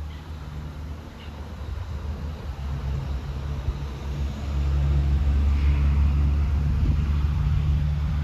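Wind buffeting the microphone: an uneven low rumble that grows louder about halfway through.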